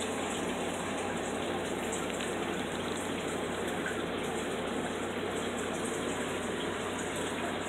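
Steady rushing of water from a running home aquarium, even and unbroken throughout.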